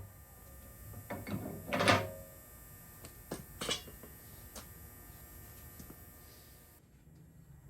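A few knocks and clattering thuds, the loudest about two seconds in, followed by a few single clicks.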